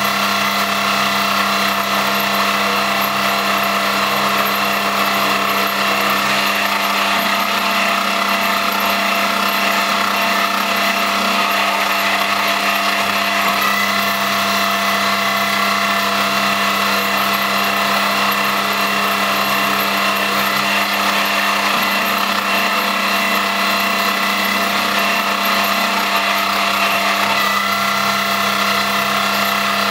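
Homemade CNC lathe set up on an X3 milling machine running: a steady machine whine with several constant tones over a mechanical rattle, the low tone shifting slightly twice.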